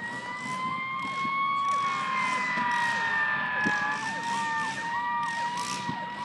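Emergency vehicle sirens sounding together: one holds a steady high tone that sags slightly in pitch midway and recovers, while the other repeats a quick rise-hold-fall yelp about three times every two seconds.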